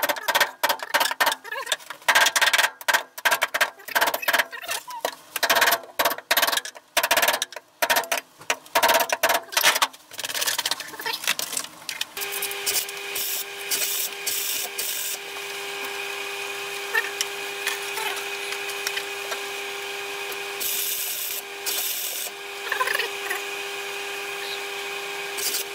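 Steel hammer striking a punch held against the sheet-steel floor pan of a stripped Honda Integra Type R, a quick run of sharp metallic blows over about ten seconds. After a short lull, a steady hum with a constant tone sets in and runs on.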